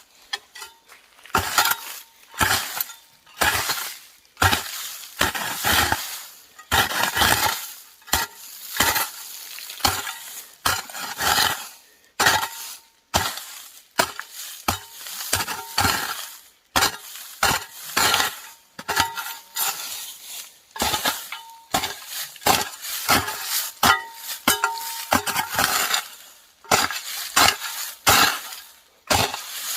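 Hand hoe (enxada) chopping into soil and weeds, its metal blade striking and scraping the ground again and again, at about one to two strokes a second.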